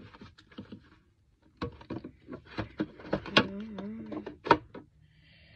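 Small plastic skincare bottles and containers clicking and knocking against each other and the storage organiser as they are handled and put away, a quick irregular string of clicks and knocks.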